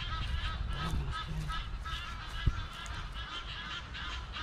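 A flock of birds calling over and over in a dense chorus of short cries, over a low wind rumble on the microphone. One sharp knock comes about two and a half seconds in.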